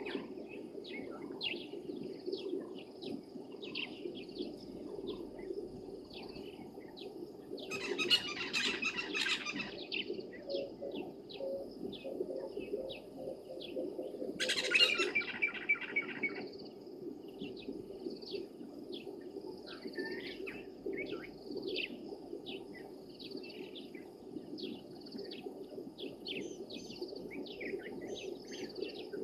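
Dawn bird chorus of many short chirps, with two louder bursts of rapid repeated calls about eight and fifteen seconds in, over a steady low hum.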